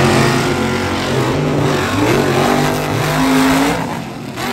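Monster truck engine revving hard, its pitch climbing and dropping several times as the truck drives the dirt track, then falling away and fading near the end.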